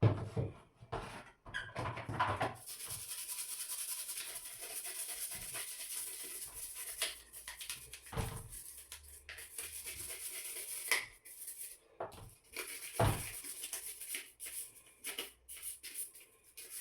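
Toothbrush scrubbing a dirty plastic washing-machine part coated in a dish soap, vinegar and baking soda mix: a steady bristly hiss with squeaks, and knocks as the plastic part is handled.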